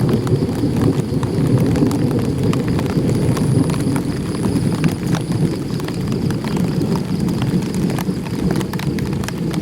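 Light rain drumming on an umbrella held overhead: a dense, steady patter with many sharp single drop ticks.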